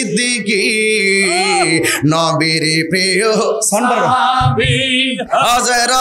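A man singing a Bengali Islamic devotional chant solo into a microphone, in long drawn-out phrases with held notes that waver in pitch.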